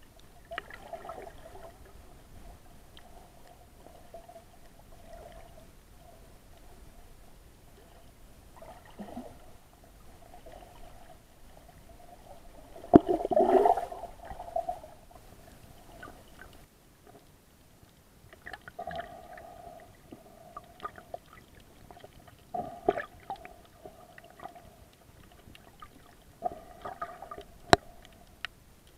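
Muffled underwater sound heard through a waterproof action-camera housing: water movement and gurgling, broken by irregular bursts from snorkelers moving close by, the loudest about halfway through.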